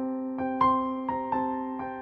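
Background piano music: a gentle melody of single notes struck at an even pace, each fading, over a steady held low note.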